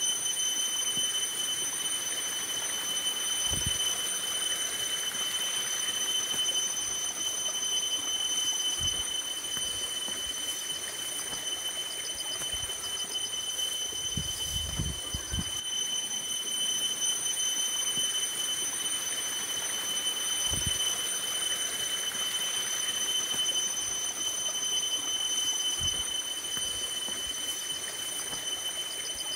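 Steady splashing of water running into a plastic tub and poured over a person from a metal bowl, with a steady high whine and a few soft low thuds.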